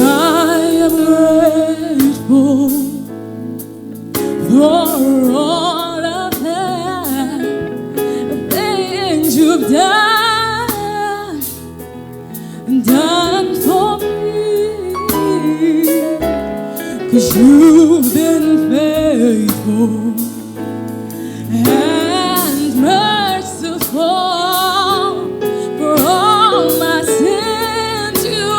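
Gospel worship song: a voice sings slow phrases with vibrato over sustained keyboard chords.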